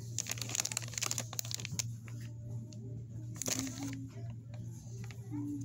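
Rustling and crinkling in a quick run of short crackles, over a steady low hum.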